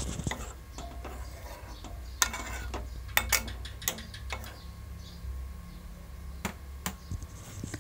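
Steel ladle stirring chicken curry in a pan of thin gravy, clinking and knocking against the pan a handful of times, most often about three to four seconds in, over a low steady hum.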